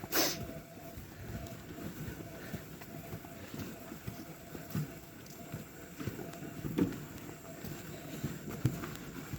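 A cart rolling and jolting over rough, wet ground, with scattered low knocks and rattles. A sharp noisy burst comes right at the start.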